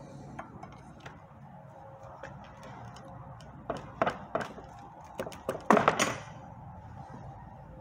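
Steel pry bar levering at the flange of a Honda six-speed transmission's aluminium case, giving a run of sharp metallic knocks from about halfway through, loudest and ringing around six seconds in, as the case breaks free of the Honda Bond sealer holding it to the bellhousing.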